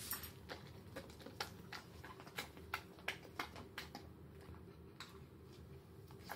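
Faint, irregular light clicks and taps, about two a second at first, thinning out after about four seconds.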